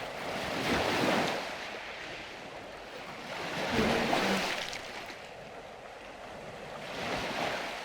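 Calm sea waves breaking gently on the shore: three soft swells about three seconds apart, each washing in and then receding.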